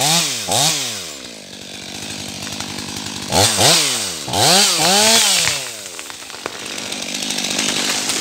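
Stihl MS 500i fuel-injected two-stroke chainsaw revved in short throttle blips, once at the start and twice in quick succession around the middle. Each time the pitch climbs and falls back to a steady idle.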